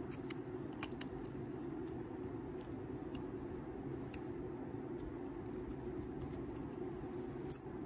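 Small metallic clicks and ticks of a precision screwdriver working the deck screws of a JuggerKnot mini RTA, over a steady low hum; a single sharp click near the end is the loudest sound.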